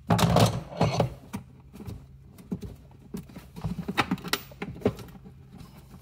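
Irregular plastic clicks, knocks and scraping as a ride-on toy's foot pedal switch is pried up out of its plastic floor recess, the louder knocks in the first second.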